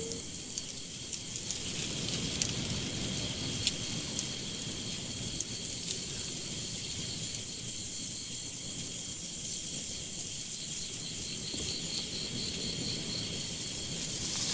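Insects trilling steadily: a high, finely pulsing buzz with a higher hiss above it, over a low rumbling noise.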